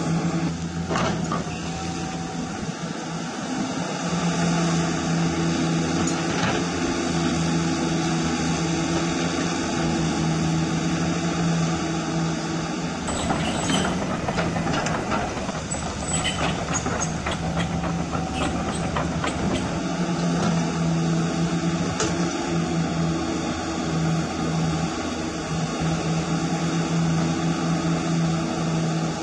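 Radio-controlled hydraulic model of a CAT 336 excavator working, its hydraulic system giving a steady hum. About halfway through, for several seconds, a rough scraping with many small clicks as soil and stones are dug and dumped.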